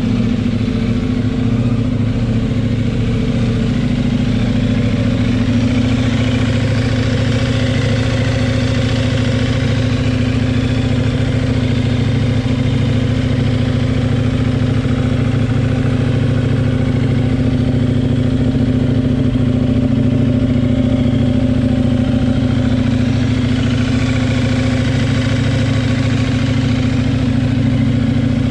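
KTM 890 Duke R's parallel-twin engine idling steadily, with no revving.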